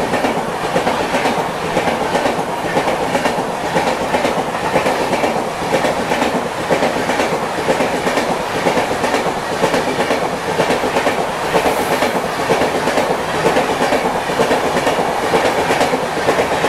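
Patna Tejas Rajdhani Express passing at speed on the adjacent track: a steady rush of coaches with a fast, rhythmic clickety-clack of wheels over rail joints.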